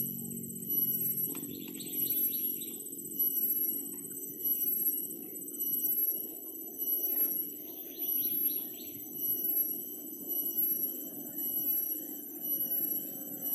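Chorus of insects shrilling in several high steady tones that swell and fade together about every second and a quarter, over a steady low rumble. A short buzzy trill cuts in twice.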